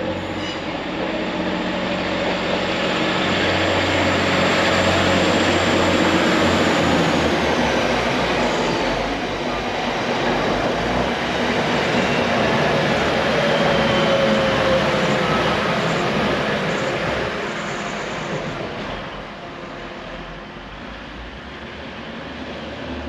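A train running along the track, loudest around five and fourteen seconds in and dying away after about eighteen seconds. A faint high whine falls away about eight seconds in.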